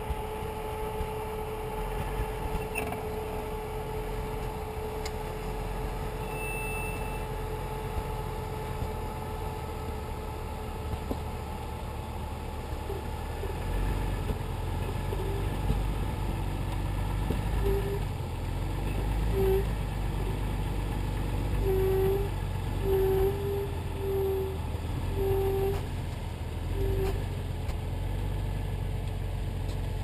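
Jeep Cherokee engine running at low speed as the truck crawls through deep snow, its low rumble growing heavier about halfway through. In the second half a string of short, irregularly spaced tone blips sounds over it.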